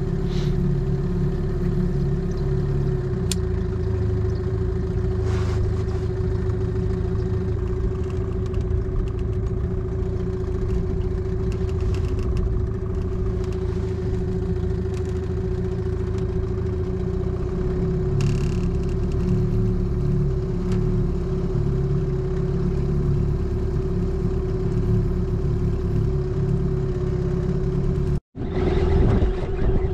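Boat's outboard motor running steadily at low trolling speed, an even hum over a low rumble. It cuts out for a moment near the end.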